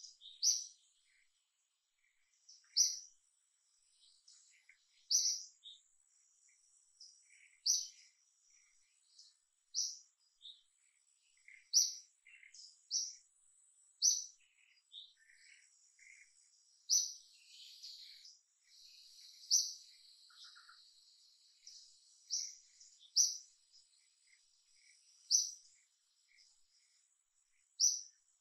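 Birds chirping: a short, high, bright note repeated about every two to three seconds, with fainter chirps and twitters in between.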